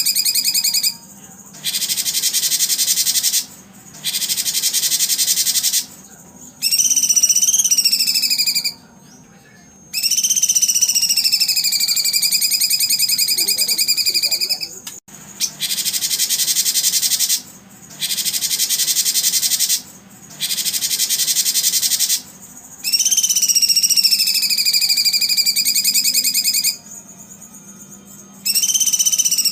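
Recorded songbird song played as an edited loop: dense rapid trills of one to two seconds alternate with longer whistled phrases that dip and rise in pitch. Each phrase starts and stops abruptly, with short gaps between them.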